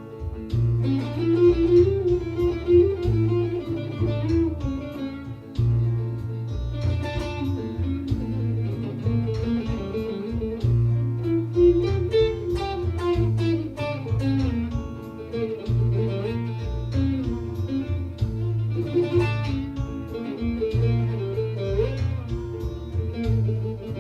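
Bağlama (Turkish long-necked lute) playing a fast, freely improvised melody in the Hicaz makam, with quick plucked runs over a steady low bass accompaniment that changes note every second or two.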